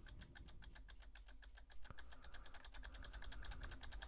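Faint, rapid, even clicking, about ten clicks a second, from a computer's controls as a video is stepped through frame by frame.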